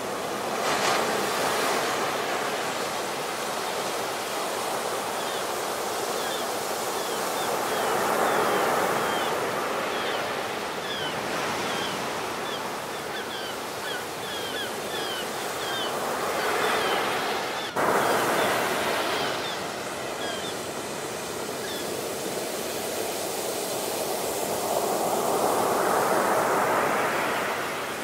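Ocean surf breaking on a beach: a steady rush of water and foam that swells as each wave crashes, about every eight or nine seconds, with a run of faint high chirps in the middle and a brief click near the middle.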